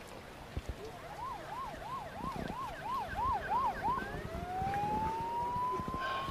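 An emergency vehicle siren in yelp mode, rapid up-and-down sweeps about three a second, switching about four seconds in to a slow rising wail.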